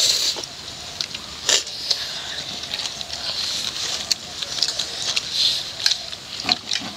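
Instant noodles being slurped and chewed, with short sharp clicks and taps of plastic forks.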